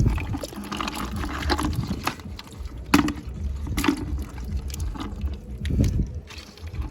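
Water sloshing and splashing as the catch is handled, with a few sharp knocks.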